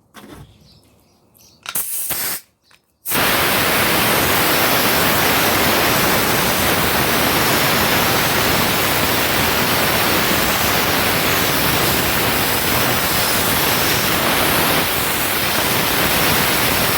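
Porter-Cable pneumatic stapler leaking compressed air out of its exhaust port. A short burst of hiss comes about two seconds in, then a steady loud hiss runs on without stopping from about three seconds in. This continuous exhaust leak is caused by a busted O-ring in the tool's valve.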